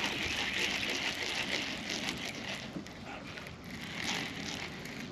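Crackly splashing of water as a hooked fish thrashes at the surface while it is reeled in, louder in the first couple of seconds and then easing.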